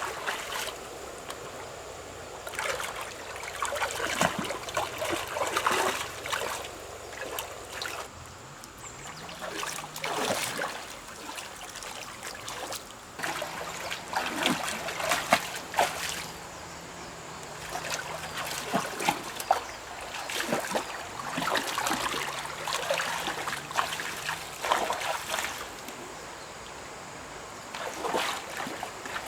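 Water splashing and trickling in irregular bouts, with quieter stretches between them.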